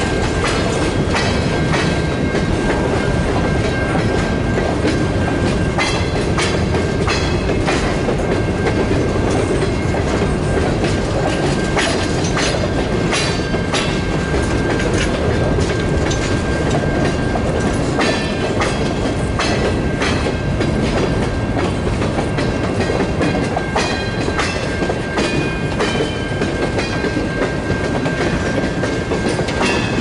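Freight train of covered hoppers and tank cars rolling past close by: a steady rumble of steel wheels on rail with frequent clicks as the wheels cross rail joints, and a faint steady high tone over it.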